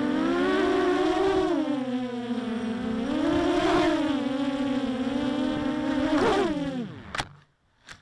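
Mini quadcopter's electric motors and Gemfan 6x4 propellers whining in flight, the pitch wavering up and down with the throttle, then dropping away about six seconds in as the motors spool down, followed by a few faint clicks. The quad's sound carries the hollow rattle that its owner hears on this model and cannot explain, perhaps from the tubular arms.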